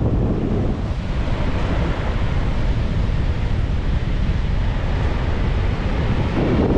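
Wind buffeting the microphone with a heavy low rumble, over the steady wash of Pacific Ocean surf.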